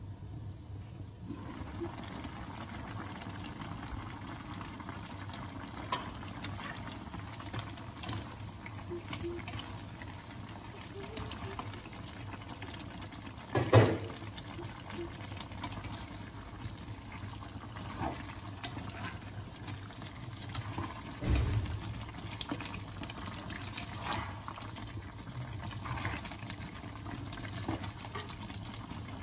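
Chicken stew simmering in a pot, bubbling steadily with small scattered clicks. There is one loud clatter about halfway through and a duller knock a few seconds later.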